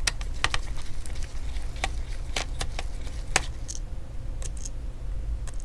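Small screwdriver clicking against the screws and metal frame of a laptop as the screws holding the battery are worked loose: about a dozen sharp little clicks at uneven intervals over a low steady hum.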